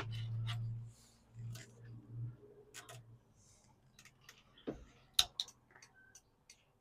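Scattered, irregular light clicks and taps of hands working the small parts of a vehicle turn signal switch, with a low hum in about the first second that fades out.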